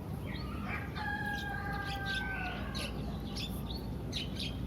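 A flock of starlings calling from a tower: many short, sharp chirps throughout, with one long, held call starting about a second in that dips slightly as it ends.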